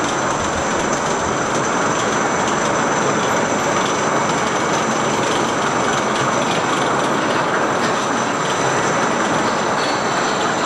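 Steel roller coaster train with riders running along its track, a steady loud rolling rumble of wheels on rail with a high whine held over it.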